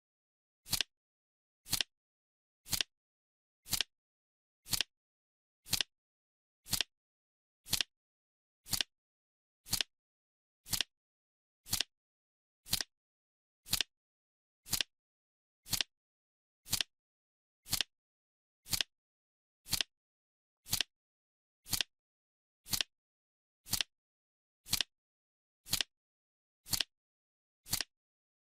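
Ticking sound effect of a countdown timer: one short, sharp tick every second, evenly spaced, with nothing in between.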